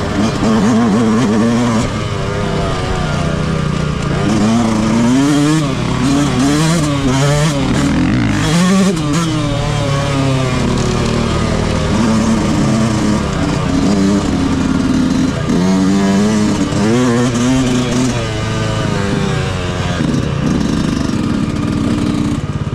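Motocross bike with a stock exhaust, ridden off-road, its engine revving up and down again and again, the pitch rising and falling every second or two.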